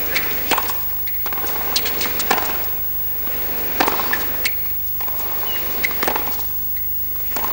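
Tennis rally on a hard court: a series of sharp pops as the ball is struck by racquets and bounces on the court, irregularly spaced. Steady stadium crowd hum lies beneath.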